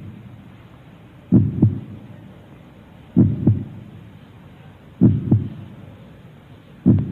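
Heartbeat sound effect: a low double thump, lub-dub, repeating steadily about every 1.8 seconds, four times.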